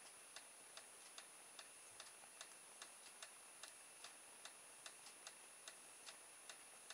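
Faint, regular ticking, about two and a half ticks a second, over near-silent room tone with a faint steady high-pitched whine.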